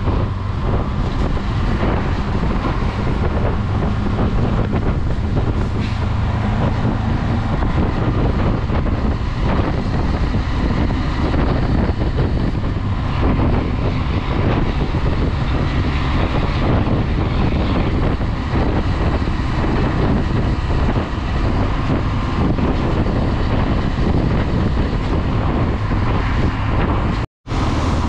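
Wind noise on the microphone over the steady running of a Honda Twister 250's single-cylinder engine while the motorcycle is ridden along the road. The sound cuts out completely for a split second near the end.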